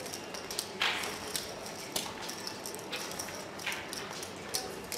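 Casino chips clicking and clacking irregularly as dealers gather and stack them on a roulette table, with a longer sliding clatter about a second in.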